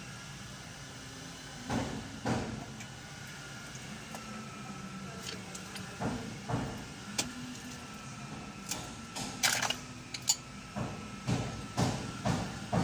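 Repeated short knocks or taps, a few scattered at first and then coming about twice a second near the end, over a steady low hum.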